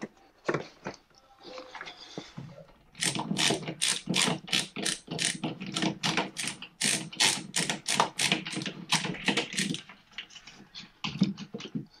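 Screwdriver driving in the cover-plate screws of a wall outlet: a quick, even run of sharp clicks, about four a second, starting a few seconds in and lasting several seconds, then fainter clicks near the end.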